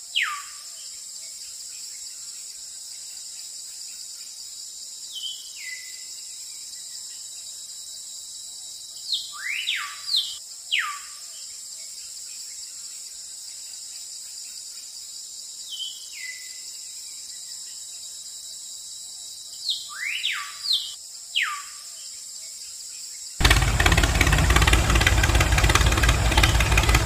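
Outdoor ambience: a steady high drone with bird calls that whistle down in pitch, coming in small groups that repeat about every ten seconds. About 23 seconds in, a loud tractor-engine running sound cuts in abruptly, with a low rumble, as a model tractor drives off.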